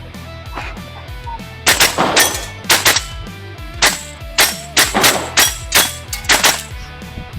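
Double Eagle Aeroknox AX-15 gas blowback airsoft rifle firing a string of around fifteen shots, mostly in quick pairs, starting about a second and a half in, as the shooter runs a timed stage after the start beep.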